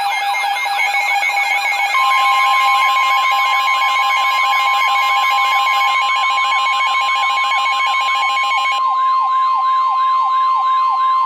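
Several electronic sirens sweeping rapidly up and down together. About two seconds in, the steady 1050 Hz weather radio alert tone joins them. Near the end some of the sirens drop out, leaving slower sweeps under the tone.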